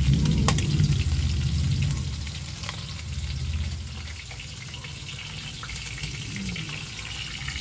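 Food frying in hot oil in a pan, a steady sizzle with scattered sharp crackles and pops. A low hum is loudest over the first two seconds, then fades.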